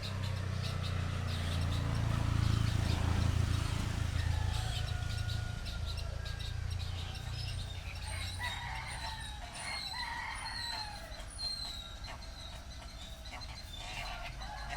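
Farmyard ambience: chickens clucking and a rooster crowing, with small birds chirping. A low rumble fills the first half and fades out.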